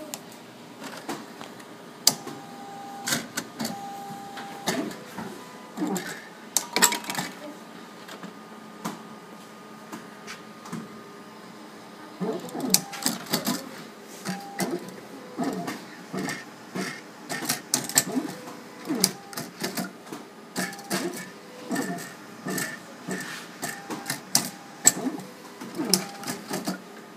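CD/DVD duplicator's robotic disc-loading arm and drives at work: repeated sharp clicks and knocks, short whirring motor strokes and brief steady whines as discs are picked up and moved between spindles and drive trays. The activity is sparser in the middle and busy again near the end.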